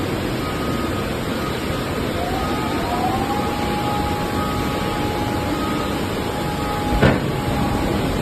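Hydraulic baling press running: steady machine noise, with a whine that rises a little about two seconds in and then holds, and a single sharp knock about seven seconds in.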